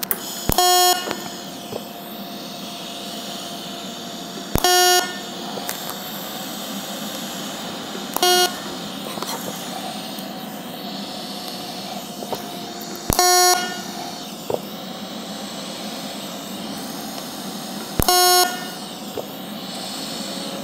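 HTP Independence 210 TIG welder's DC arc making five short fast-tack spot welds, each a loud buzzing tone of about half a second that opens with a sharp click, spaced four to five seconds apart over a steady hiss. The third tack is shorter and sounds a little different, from too short a tungsten-to-work distance.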